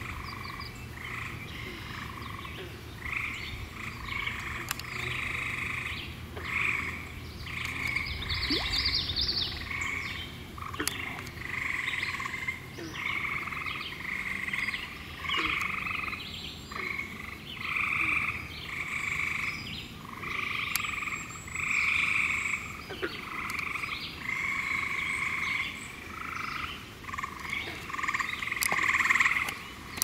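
A chorus of frogs calling: short trills, each under a second, following one another and overlapping, with a brief higher call about nine seconds in.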